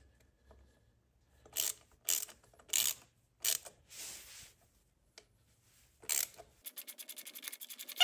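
Hand ratchet with a 5/16 socket tightening a new bolt on a Harley-Davidson's primary cover: a few short bursts of pawl clicking, then a fast, even run of clicks near the end.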